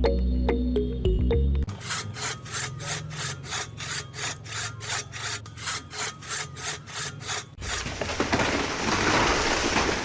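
A saw cutting wood in even back-and-forth strokes, about three a second, followed by a steadier rasping from the saw biting through the wood. A short stretch of music is heard at the start.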